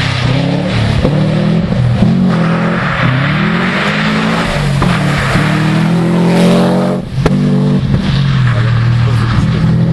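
Competing car's engine revving hard through a tarmac sprint course. Its pitch rises and falls several times as it accelerates, changes gear and lifts for the corners, with a brief drop and a sharp click about seven seconds in.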